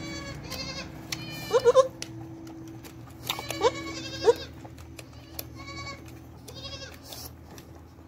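Goats bleating several times in short rising calls, the loudest about a second and a half in and more a couple of seconds later, over a steady low hum.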